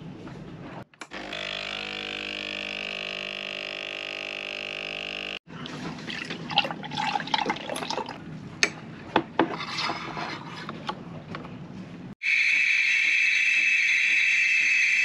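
Home espresso machine making a milk coffee. First its pump hums steadily for about four seconds while a shot is brewed. Then come clinks and milk being poured into a ceramic mug, and from about twelve seconds in the steam wand hisses loudly and steadily in the milk, frothing it; this is the loudest part.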